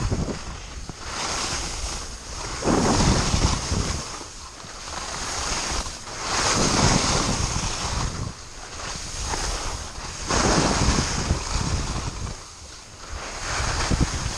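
Skis scraping and hissing on firm, packed snow during a downhill run, swelling with each turn about every one and a half to two seconds, with wind rushing over the microphone.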